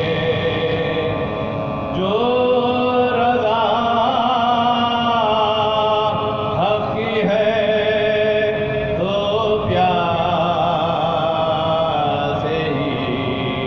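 Soz-khwani: a marsiya lament chanted unaccompanied in long, held, wavering vocal phrases, a new phrase beginning every three to four seconds.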